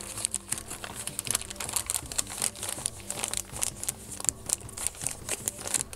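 Paper bag being opened and handled by hand: irregular crinkling and rustling of paper, many short crackles close together.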